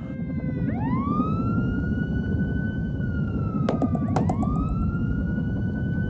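Police siren wailing: it rises quickly, holds, sinks slowly, then rises again about four seconds in, over a steady low rumble of street noise.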